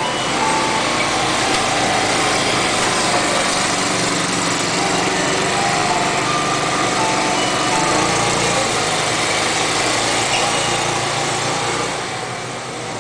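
Small motor scooter's engine running steadily, dropping off a little near the end.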